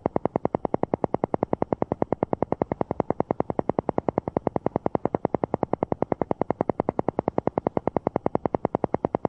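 Alpha-wave isochronic tone for brainwave entrainment: a buzzy synthesized tone pulsing on and off rapidly and evenly, about ten pulses a second.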